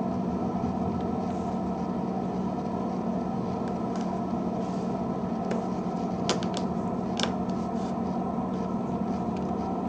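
A few small, sharp plastic clicks as the BlackBerry Tour's back housing is fitted and pressed into place, spread through the middle of the stretch, over a steady low hum.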